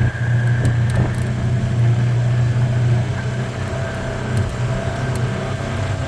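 ATV (four-wheeler) engine running with a steady low hum.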